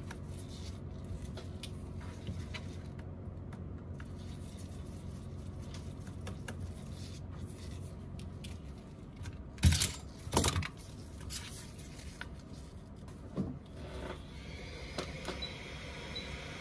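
Small metal clicks of a precision screwdriver backing out an iPhone 11 Pro Max's bottom screws, with two sharp knocks a little before halfway as the screws and tool are set down on the work surface. Near the end a hot-air heat gun starts blowing at the cracked screen's edge, a steady high whine, to soften the screen adhesive.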